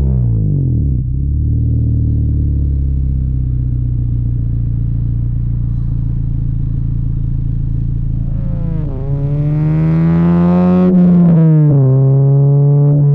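Honda Civic's engine and aftermarket Invidia exhaust: the revs fall off at the start, hold steady for several seconds, then climb for about two seconds under acceleration before dropping sharply at a gear change and settling again.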